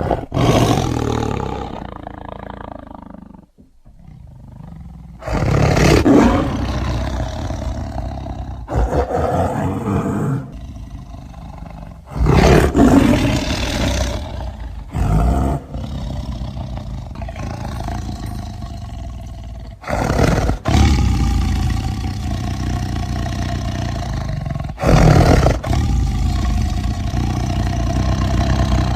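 A big cat (tiger or lion sound effect) roaring over and over: about seven deep roars a few seconds apart. Each starts suddenly and loud, then tails off.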